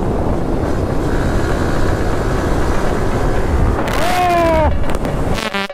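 Yamaha motorcycle at speed, about 100 km/h in fifth gear, engine running under a steady rush of wind noise. About four seconds in, a short pitched tone sounds and falls slightly in pitch.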